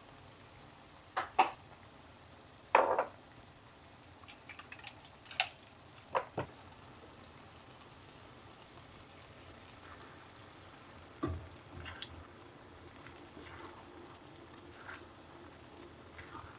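Metal tongs clicking and knocking against a frying pan as pasta is dropped into tomato and eggplant sauce and tossed, a handful of sharp clacks over a faint steady sizzle of the simmering sauce; one knock a little after the middle carries a low thud.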